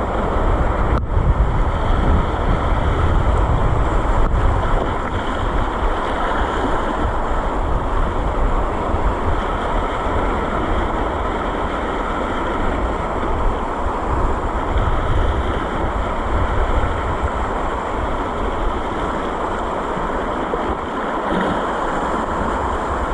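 Wind buffeting the microphone with a steady wash of sea waves on the shore.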